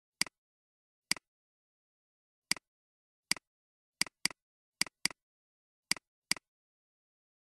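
About ten sharp computer mouse clicks at irregular intervals, a few in quick pairs, with silence between.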